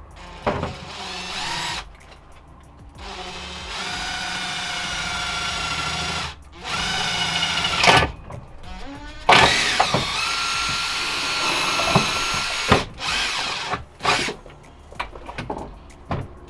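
Cordless drill boring a small pilot hole up through the van's floor from underneath, running in several bursts of one to three seconds with short stops between, the motor's whine changing pitch as the trigger is squeezed and the bit bites.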